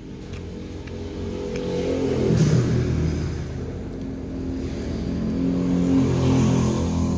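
A motor vehicle engine running past, swelling to its loudest about two and a half seconds in and again near six seconds. Faint clicks of a spoon and fork on the plate sound now and then.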